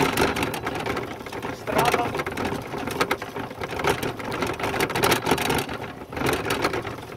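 Bicycle being ridden: a steady, rapid rattling clatter with rushing noise.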